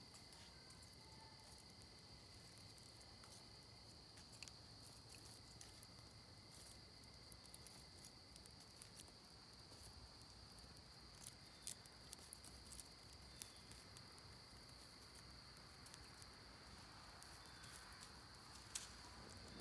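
Faint, sparse crackling and sharp pops from a small twig fire just catching, over a steady high drone of crickets.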